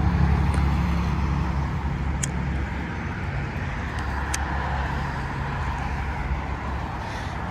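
A motor vehicle's engine running, a steady low hum that eases off a little after a couple of seconds, with two brief clicks in the middle.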